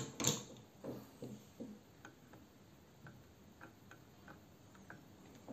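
Small metal tools, tweezers and a soldering-iron tip, ticking and clicking against a graphics card's circuit board during hand soldering of a jumper wire: two sharper clicks at the start, then faint irregular ticks.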